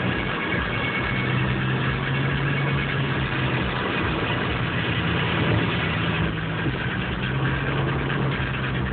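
2003 Chevy Malibu LS's 3.1-litre V6 engine and exhaust droning steadily at freeway cruising speed, heard inside the cabin over tyre and road noise. The engine note dips briefly a couple of times.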